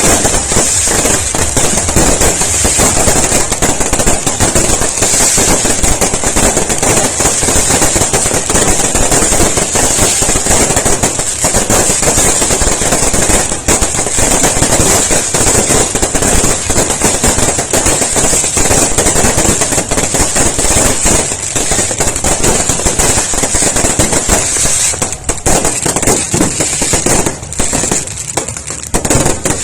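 Fireworks going off in a dense, unbroken barrage of rapid crackling and popping. There are brief lulls near the end.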